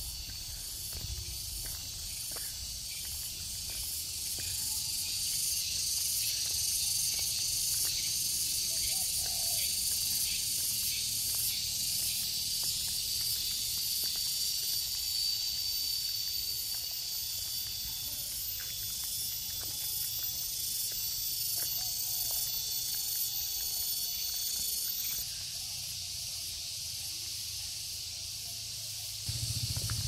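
A chorus of insects buzzing, high and shrill with a regular pulse, thinning out about 25 seconds in. A low engine hum comes in near the end.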